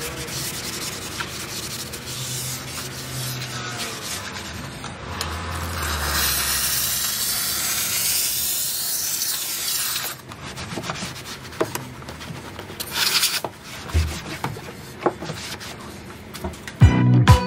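Detailing steam cleaner jetting steam onto a car's door sill: a steady hiss that grows louder about halfway through and stops about ten seconds in, followed by a few scattered clicks and knocks.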